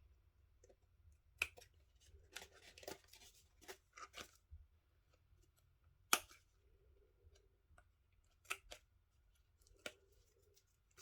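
Scissors cutting card: a series of separate, irregular snips with pauses between, as a piece of card is trimmed down.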